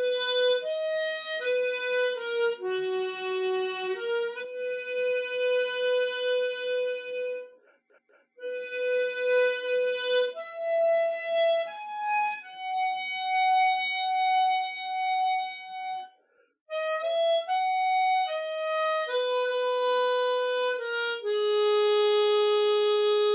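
Harmonica playing a slow, single-line melody in held notes, phrase by phrase with two short breaks, ending on a long sustained note. Dry, unprocessed tone with no added echo or reverb.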